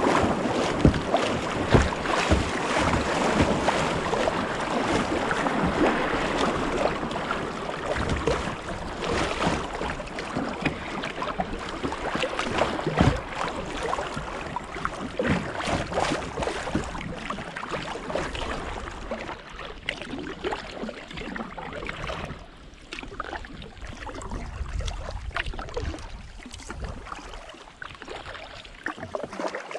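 River riffles rushing and splashing around a kayak's hull, with scattered sharp splashes. The rush dies down over the last third as the current smooths out into calm water.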